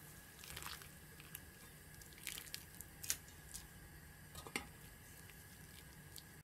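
Wet shepherd's purse greens being scooped out of hot blanching water with a mesh strainer and wooden spatula: faint, short splashes, drips and light knocks of the tools against the pan, a dozen or so scattered through, the sharpest about three seconds in and again about a second and a half later.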